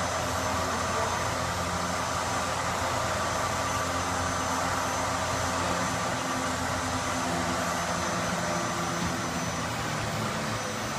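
A steady mechanical drone with a low hum, unchanging throughout, like an engine or machine running at constant speed.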